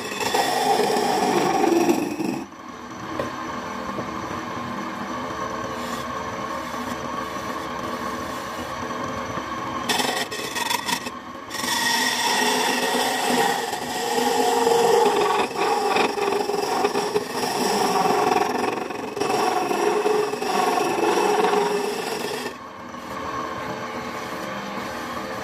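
Wood lathe running with a steady hum while a hand-held chisel hollows the inside of a spinning wooden mug blank, giving a rough scraping of tool on wood. The cutting is heavy for the first couple of seconds and again from about twelve to twenty-two seconds, and lighter in between and near the end.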